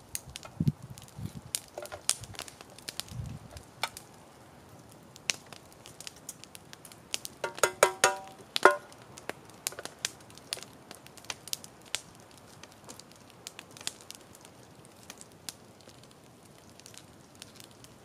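Wood campfire crackling, with scattered sharp snaps and pops. About seven to nine seconds in, a brief run of high squeaks stands out as the loudest sound.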